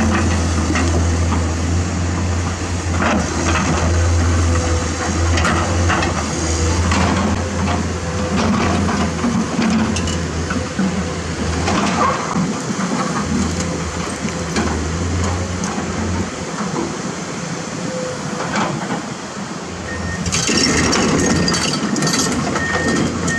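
Komatsu PC210-10 excavator's diesel engine running under load, with rock knocking and scraping against the bucket. About 20 seconds in the machine gets louder as it moves, and an alarm starts beeping at a steady pace.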